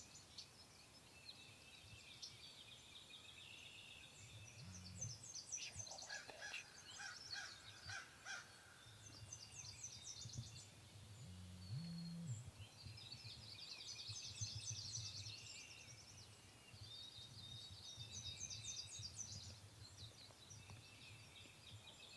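Faint wild birds singing and calling, with repeated high trills and chirps from several birds.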